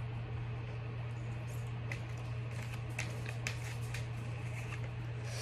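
Oracle cards being shuffled by hand: a run of light snaps and clicks starting about a second and a half in, over a steady low hum.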